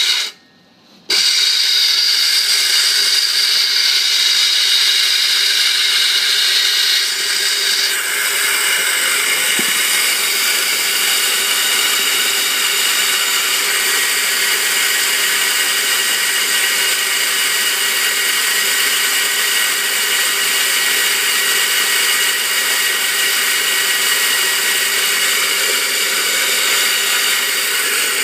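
Electric coffee grinder running steadily, grinding beans into a pot. It starts about a second in and keeps a steady whirring whine, its highest part easing slightly a few seconds later.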